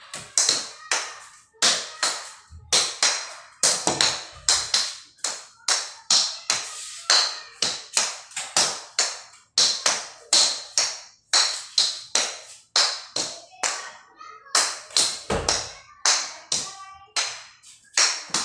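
A long run of sharp taps, about two a second, with a short break about fourteen seconds in and a few dull thumps among them.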